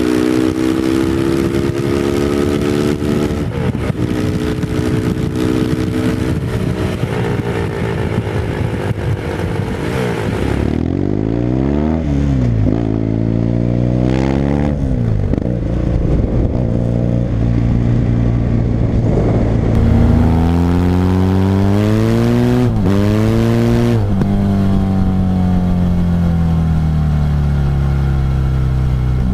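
Onboard sound of three 360-degree parallel-twin motorcycle engines under way, one after another: an older Yamaha 750 twin, then a Yamaha XTZ 750 Super Ténéré, then a BMW F 800 GS with an Akrapovic slip-on exhaust. Each engine pulls with revs rising and falling through gear changes, with quick dips and recoveries about 12 and 23 seconds in, and the sound changes abruptly at the cuts about 11 and 20 seconds in.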